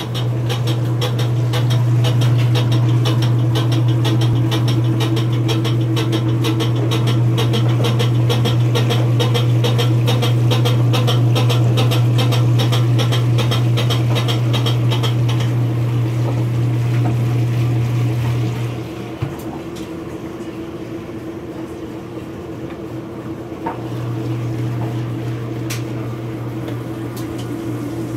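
Maytag washing machine starting its spin after agitation, its motor humming under a rapid, regular clunking that dies away after about fifteen seconds as the spin speeds up. The motor hum cuts out a few seconds later and starts again about five seconds after that.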